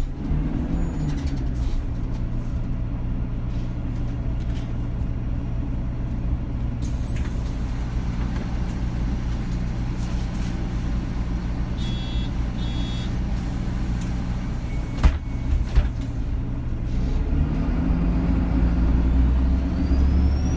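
Bus engine and road rumble heard from inside the cabin, running steadily; the engine note drops at the start and climbs again near the end as the bus picks up speed. Two short high beeps sound near the middle, followed a little later by a couple of sharp knocks.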